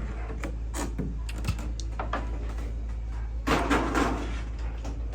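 Handling of a toy's plastic packaging: light clicks and knocks, with a longer crinkling rustle about three and a half seconds in. The sound comes from the packaging being taken off a die-cast toy robot.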